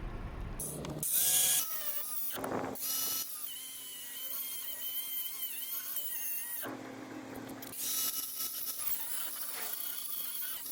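Angle grinder running and cutting into the seized, rusted stud of an anti-roll bar link, its whine wavering in pitch as the disc bites. The sound changes abruptly a few times.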